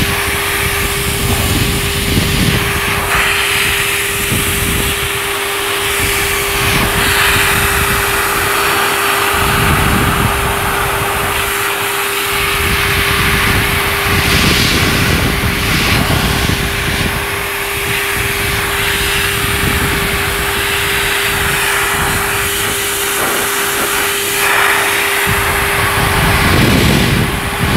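Pet grooming dryer blowing on a wet dog's coat: a steady motor hum with loud rushing air that swells and dips. The hum stops a little before the end.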